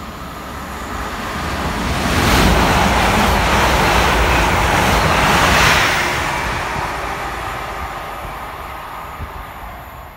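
Passenger train passing through the station at speed: a rushing rail noise that builds, is loudest from about two to six seconds in, then fades away.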